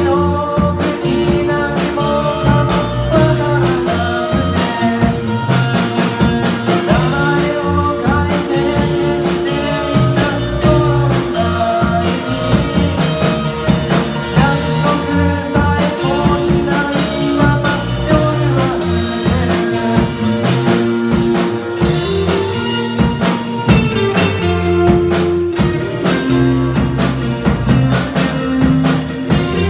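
Rock band playing live at full volume: electric guitars, electric bass and drum kit, with a steady drum beat under sustained guitar notes.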